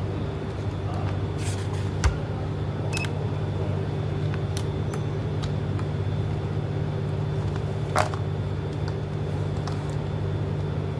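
Steady low mechanical hum, with two sharp clicks a few seconds apart.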